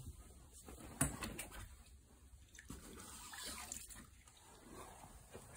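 Faint scattered knocks and clicks, with a sharper knock about a second in, over a low steady hiss.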